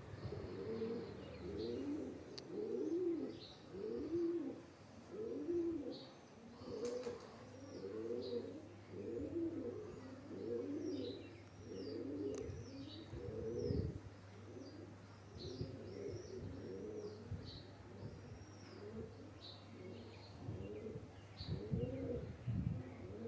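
Pigeons cooing over and over in low, rolling calls, with another bird's short high chirps mixed in.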